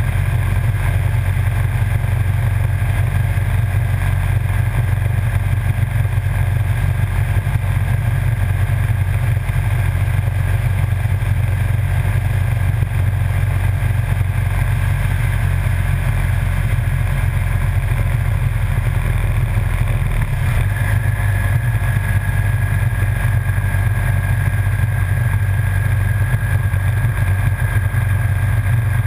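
Motorcycle cruising at a steady speed: a loud, steady low rumble of engine, tyres and wind on a camera mounted by the front fender, with a faint steady high whine that grows a little stronger about twenty seconds in.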